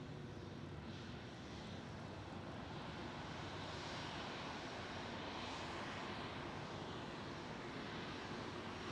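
Airliner's engines, a steady rush that grows gradually louder as the plane draws nearer.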